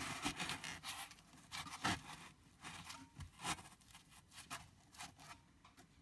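Irregular scraping, rubbing and rustling as a piece of high-density foam is worked into an open duct hole in the wall. The handling is busiest for the first couple of seconds, then thins to scattered scrapes and clicks.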